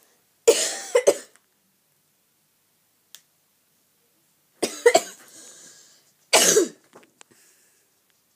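A person coughing in three bouts: a couple of coughs about half a second in, a short run of coughs around five seconds in, and one more cough a moment later.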